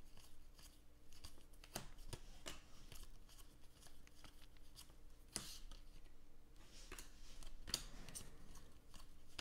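Panini Contenders football trading cards being flipped through by hand: faint, scattered slides and clicks of card stock as cards are pulled off a stack one at a time, with a low steady hum underneath.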